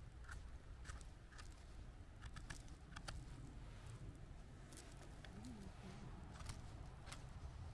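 Quiet, with scattered small clicks and crackles of twigs and forest litter being disturbed, over a low rumble.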